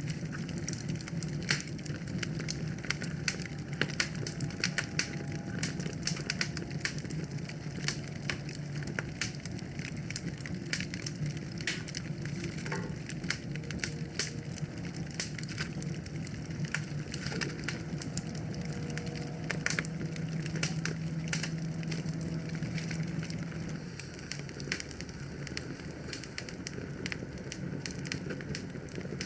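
Wood fire crackling in a fireplace, with dense, irregular pops and snaps over a low, steady rumble.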